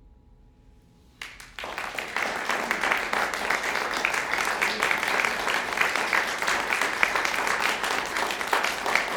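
Audience applauding, breaking out suddenly about a second in, just after the last notes of the flute and piano die away, and carrying on at a steady level.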